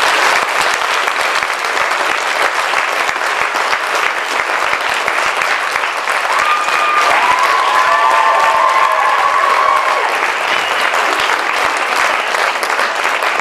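Audience applauding steadily, a dense, even crackle of many hands clapping.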